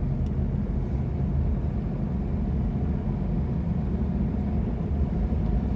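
Steady low rumble of a moving car's road and engine noise, heard inside the cabin with the windows closed.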